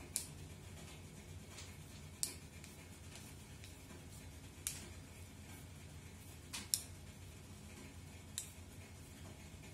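Chopsticks clicking against a glass mixing bowl while stirring a stiff flour, water and spring onion dough: about six sharp clicks at irregular intervals, two in quick succession past the middle, over a low steady hum.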